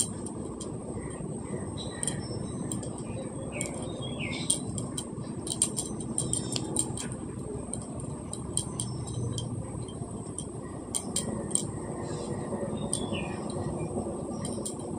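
Head massage: hands rubbing and working through hair and scalp, with many scattered small clicks and rustles over a steady background hiss and a faint high whine.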